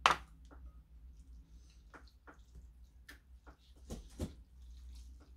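Close-up eating sounds of a person chewing kimchi stew with ramen noodles: a sharp sound right at the start, then scattered short wet mouth smacks and chopsticks clicking against the bowl.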